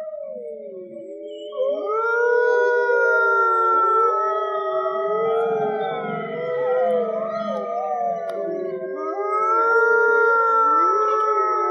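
Arctic wolves howling together: several long, overlapping howls that glide up and down in pitch, with more voices joining and the chorus growing louder about a second and a half in.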